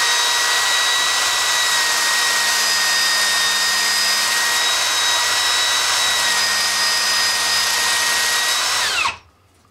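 Cordless drill spinning a drill-mounted grinding wheel at steady speed, a high whine over the hiss of a knife blade being drawn lightly across the stone. The whine falls away and stops about nine seconds in.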